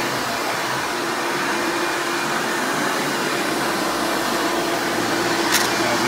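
Hoover Legacy Widepath upright vacuum, fitted with a Hoover Breathe Easy motor, running steadily on carpet: loud steady airflow noise with a constant motor tone. A short click sounds near the end.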